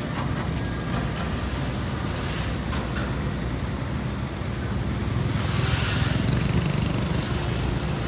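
Steady low rumble of road traffic and engines, with a pickup truck driving close past about halfway through: its tyre and engine noise swells, then fades.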